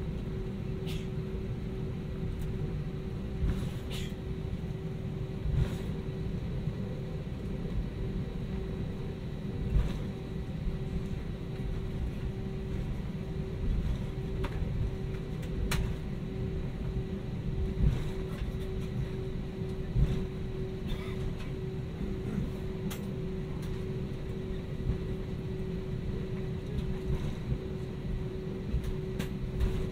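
Airbus A320-200 cabin noise: a steady low rumble with a steady hum, from the V2500 engines and air systems, broken by a few short knocks and clicks.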